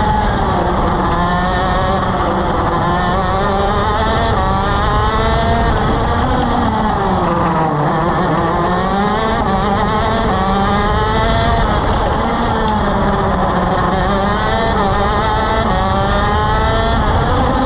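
Shifter kart's two-stroke engine at race pace: its pitch climbs, drops back at each gear change and climbs again. About seven seconds in it falls away under braking and downshifts, then it revs back up through the gears.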